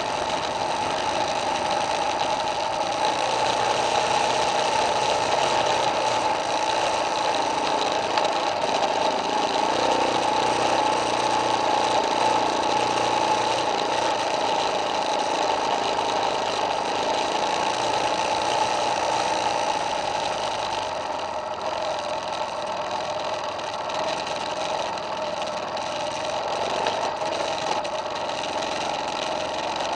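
Single-cylinder four-stroke dirt bike engine running steadily while riding a steep, loose, rocky trail, easing off a little about two-thirds of the way in.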